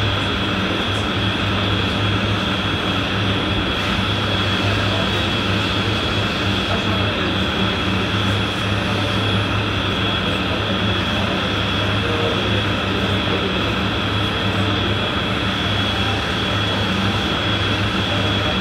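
A steady mechanical drone with a constant high-pitched whine over a low hum.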